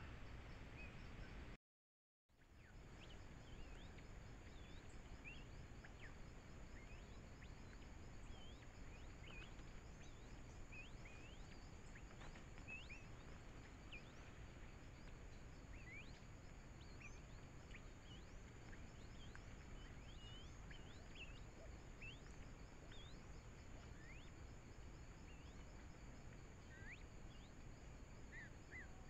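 Faint forest ambience through a trail camera's microphone: steady hiss under a continuous high insect drone, with many short, scattered high chirps throughout. The audio drops out completely for about half a second around two seconds in, where one camera clip ends and the next begins.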